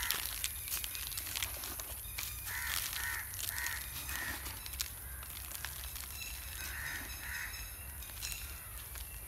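Crows cawing: a run of about five caws a few seconds in, then two more later, over faint clicks and footsteps on tilled soil.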